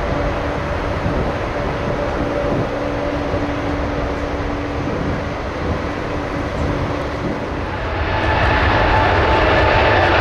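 Jet airliner engine noise with passing road traffic, a steady rumble and hiss. About eight seconds in it turns louder and closer as a British Airways Boeing 777's engines take over, with a steady high whine.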